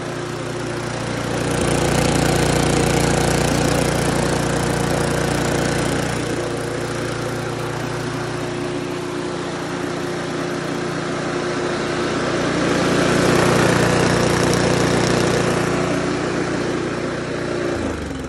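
Briggs & Stratton single-cylinder lawn mower engine running steadily on a makeshift fuel of motor oil, diesel and automatic transmission fluid dosed with Sea Foam. It is shut off near the end, its note falling as it winds down.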